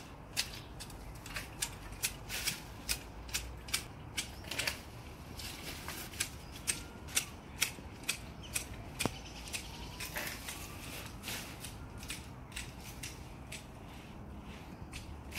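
Manual hedge shears snipping through leafy shrub branches: a steady run of crisp clicks, about two a second, denser in the first few seconds.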